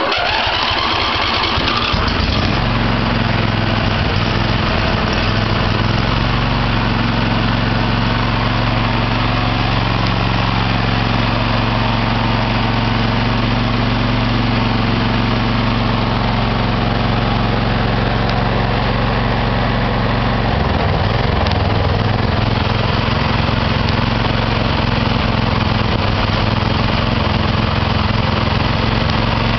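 Riding lawn mower's small engine starting, its pitch rising over the first two seconds, then running steadily at idle. Its note shifts about 20 seconds in. The idle keeps losing power and picking back up, which the owner puts down to a carburetor that needs cleaning.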